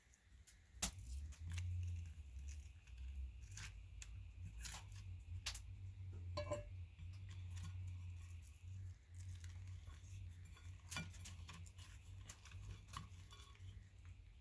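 Faint scattered clicks, taps and soft rustles of fingers moving fried potatoes and bacon from a cast iron skillet onto a flatbread and folding it into a wrap, over a low steady hum.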